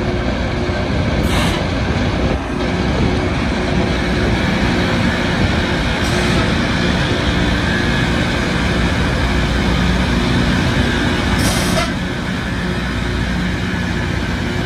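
Loram rail grinder train working along the track: its diesel engines run steadily under the loud, continuous rasp of the grinding stones on the rail. Two brief sharp noises cut through, one about a second and a half in and one near eleven and a half seconds.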